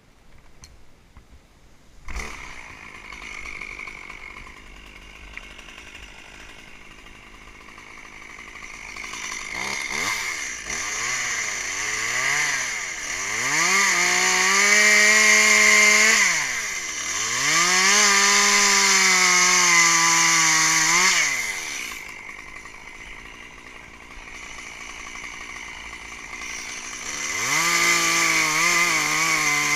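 Chainsaw engine, close by, starting about two seconds in and idling. It then revs up and runs at full throttle in two long stretches through the middle, its pitch dipping under load, drops back to idle, and revs up again near the end.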